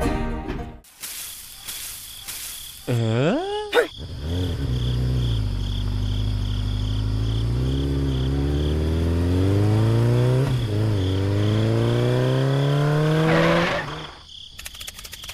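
Motorcycle engine sound effect: a quick rev that rises and falls about three seconds in, then the engine running and slowly climbing in pitch before it cuts off near the end.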